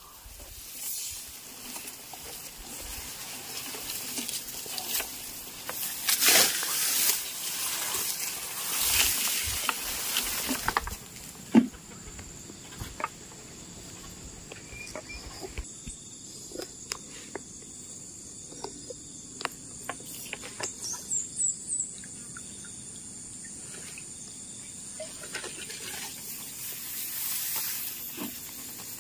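Insects chirring steadily at a high pitch in rice-field surroundings. Over the first ten seconds or so there is irregular rustling and handling noise, followed by scattered small clicks.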